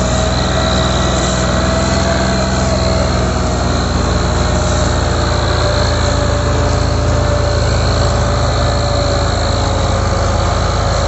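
Ford 3610 tractor's three-cylinder diesel engine running steadily at full load as it strains to pull an overloaded sugarcane trolley.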